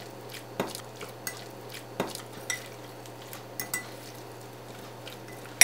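Raw chicken pieces being mixed by hand with corn flour and seasoning in a glass bowl: soft, wet stirring with irregular light clicks against the glass. One sharper clink comes right at the end.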